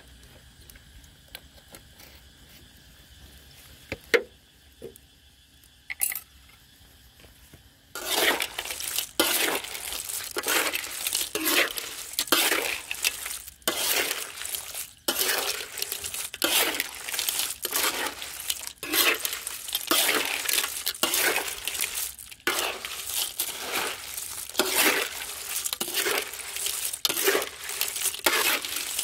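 Small river clams being stir-fried in a large metal wok: a spatula scrapes and tosses the shells, which clatter against each other and the pan in repeated strokes about once a second, starting about eight seconds in. Before that there are only a few faint clicks.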